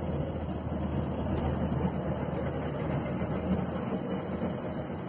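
Column of tracked armoured military vehicles driving past: a steady low engine rumble with track and road noise.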